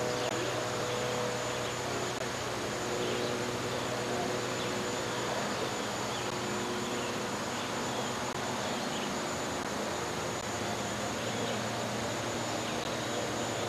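Steady hiss with a thin, high, unchanging whine over it and faint low hum lines, with no distinct events.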